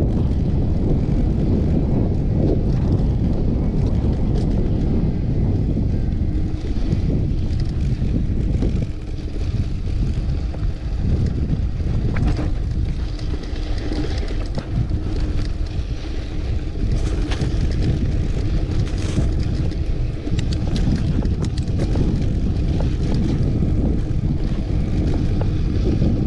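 Mountain bike rolling fast down a sandy dirt trail: a steady low rumble of wind on the microphone mixed with tyre and frame noise, with a few sharp clicks and rattles through the middle.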